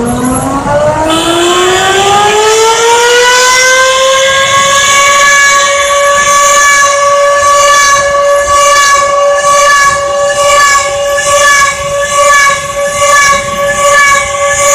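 Emergency alert siren winding up from a low pitch, rising for about four seconds, then holding one steady, horn-like tone that wavers a little in loudness near the end.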